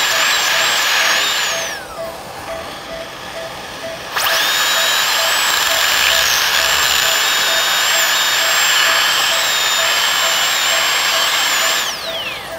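High-speed dental handpiece (dentist's drill) whining as it cuts a primary tooth during a crown preparation. It runs, then spins down with a falling whine about two seconds in, starts again abruptly about four seconds in, runs steadily, and spins down near the end.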